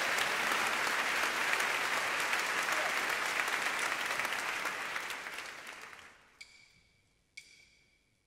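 Audience applause: a steady round of many hands clapping that fades away about six seconds in. Near silence follows, broken by two faint clicks.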